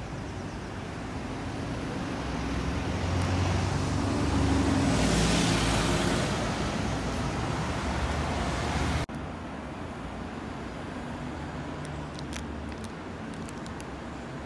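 A double-decker bus passing close by: its engine and tyres grow louder, peak about halfway through, then fade as it drives away. After an abrupt cut about nine seconds in, quieter steady traffic noise.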